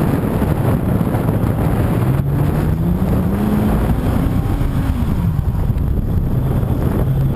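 Car engine under heavy wind buffeting on an outside-mounted camera's microphone; the engine climbs in revs over a couple of seconds and then drops back down.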